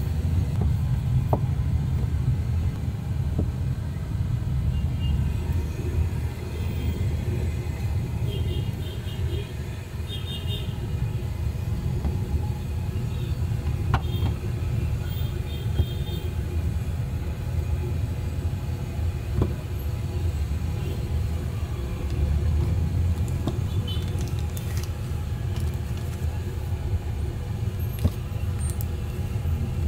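Steady low rumble of road traffic, with a few faint clicks and taps, and light crinkles of paper being folded near the end.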